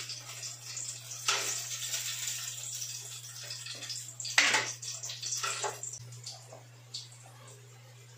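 Water being poured into a cup from a plastic jug, a splashing pour lasting a couple of seconds, followed by a few light knocks of the cup and jug on the counter. A steady low hum runs underneath.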